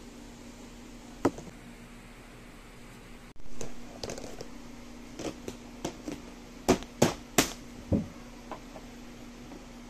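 Plastic containers being handled: a sharp click about a second in, then a run of knocks and taps on a plastic tub and its lid, loudest in a cluster around seven seconds in, over a steady low hum.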